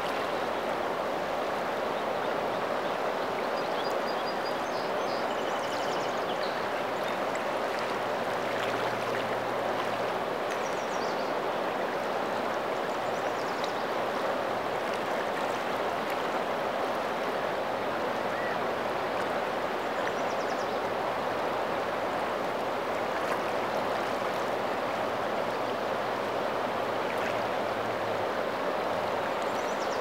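A wide, swift river flowing, a steady rush of water.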